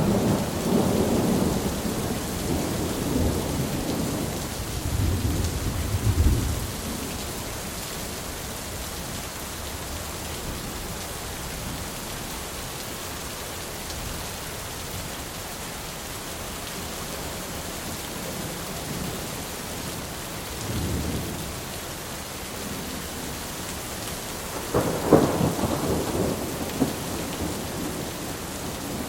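Steady rain with rolling thunder: a long rumble over the first several seconds, a short low rumble about 21 seconds in, and a louder thunderclap and rumble about 25 seconds in.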